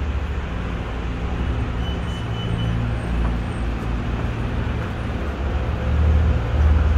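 A vehicle's steady low rumble with an even hiss over it, growing louder about six seconds in.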